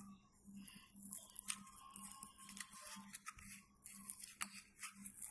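Soft crackling and small scattered clicks as the seal is peeled and torn from the mouth of a plastic supplement bottle, over a faint steady hum.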